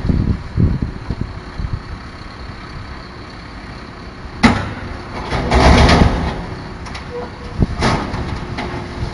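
Garbage truck running while wheeled bins are tipped into its rear: a sharp bang about four and a half seconds in, a rush of clattering noise just after, and another bang near the end. Wind buffets the microphone at the start.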